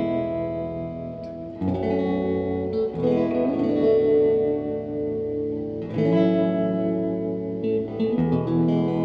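Guitar music: held, ringing chords that change every one to three seconds.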